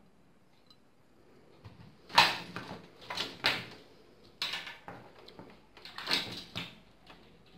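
Power-supply cables and their plastic connectors being handled and pulled through the back of a metal PC case: a run of rustles and clattering knocks, starting about two seconds in and stopping shortly before the end.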